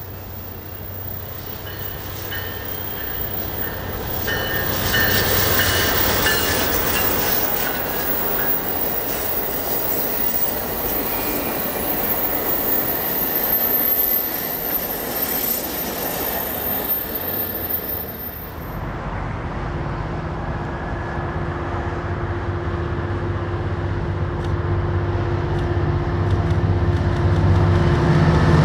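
Amtrak Pacific Surfliner passenger train rolling by with steady rail noise and high wheel squeal. Partway through it gives way to a Coaster commuter train's diesel locomotive, whose engine drone grows louder as it approaches.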